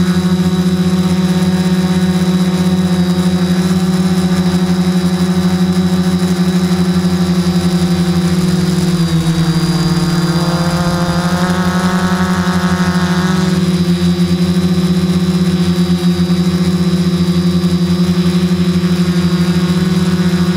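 Q450 quadcopter's brushless motors and propellers humming steadily, heard up close from the camera mounted on the frame. The pitch dips about nine seconds in and the upper tones shift for a few seconds as the throttle changes, then settle.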